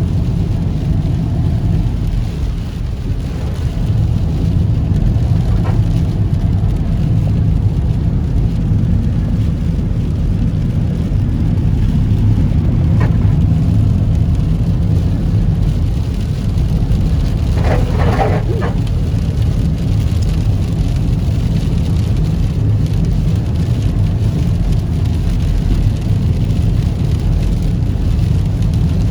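Car driving in heavy rain: a steady low rumble of engine and tyre noise mixed with rain. A short pitched sound stands out about eighteen seconds in.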